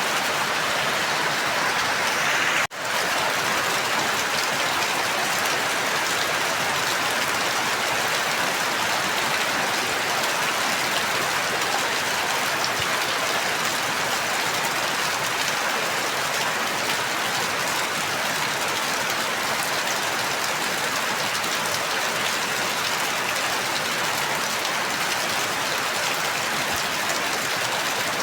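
Steady rain, an even hiss of falling drops. About three seconds in, the sound cuts out for an instant and comes straight back, like a splice in the recording.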